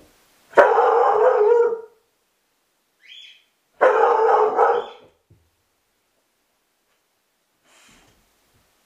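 A Groenendael (Belgian Sheepdog) barking loudly in two spells of about a second each, a few seconds apart: alert barking set off by the doorbell.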